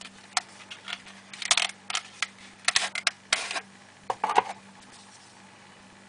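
Handling noise of a Hinderer XM-24 folding knife being drawn out of a leather pouch sheath and turned over in the hands: an irregular run of leather rustles, scrapes and small clicks that stops about four and a half seconds in.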